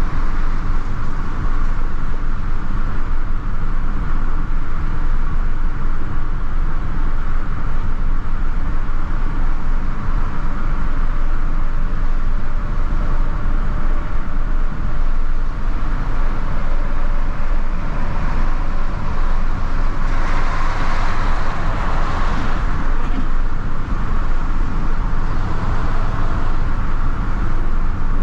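Steady engine, tyre and wind noise inside the cabin of a first-generation Toyota Yaris cruising at road speed. About twenty seconds in, a louder rush of hiss rises for a couple of seconds and then falls back.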